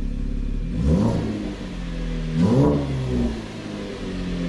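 A 2015 Chevrolet Camaro's 3.6-litre V6 idles through a newly installed Corsa cat-back exhaust and is blipped twice, about a second in and again about a second and a half later, its pitch rising sharply and dropping back to idle each time.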